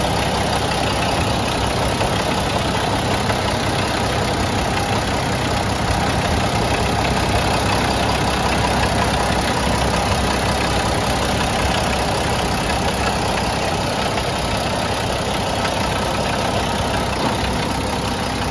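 Turbocharged Mack diesel engine of a 2000 Mack CH613 dump truck idling steadily.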